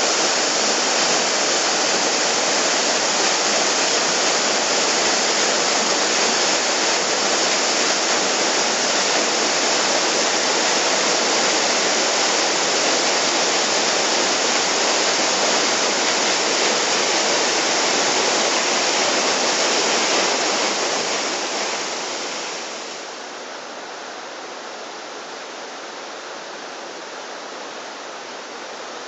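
Waterfall, a steady rush of falling water, dropping to a quieter rush about three-quarters of the way through.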